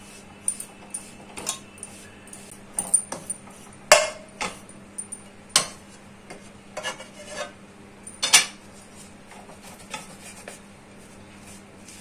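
Steel tumbler pressed and knocked against a metal kadhai to break up lumps in roasted gram flour. It makes irregular clinks and scrapes, with the sharpest knocks at about four, five and a half and eight seconds.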